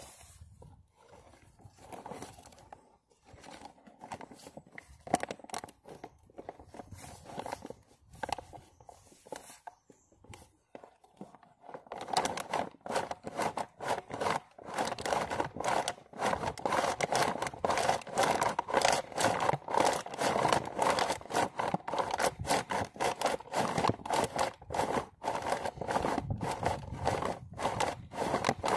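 Damp deer hide being dragged back and forth over the edge of a plastic sawhorse to break it down into soft buckskin: a rapid scraping and rubbing, sparse at first, then quicker and louder from about twelve seconds in.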